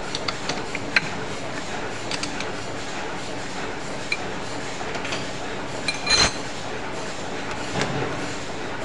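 Steel spanner clinking against the hex nut and mandrel of a stopped lathe as it is put on and taken off the nut. There are scattered sharp clinks, with the loudest clank about six seconds in, over a steady background noise.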